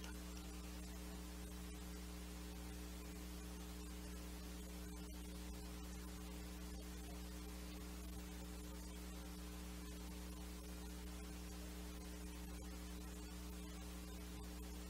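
Steady electrical mains hum with a faint hiss underneath, unchanging throughout; no other sound stands out.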